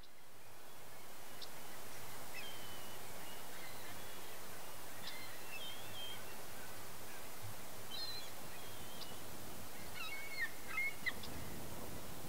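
Scattered short bird calls over a steady outdoor hiss of breeze, with a cluster of louder calls about ten seconds in.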